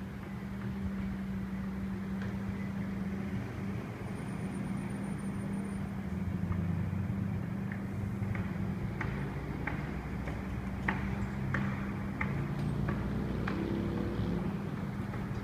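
A steady low mechanical hum with a droning tone. From about the middle onward, irregular sharp clicks and knocks of climbing down a crane's steel ladder come through.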